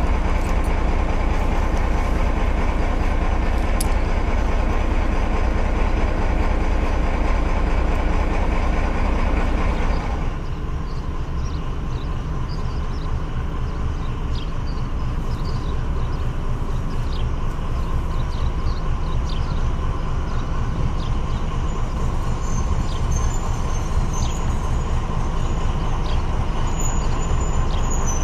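MÁV M41 diesel-hydraulic locomotive's diesel engine running steadily close by. About ten seconds in, the sound changes abruptly to the same locomotive approaching with a train of flat wagons: a lower, steady engine sound with faint ticks above it.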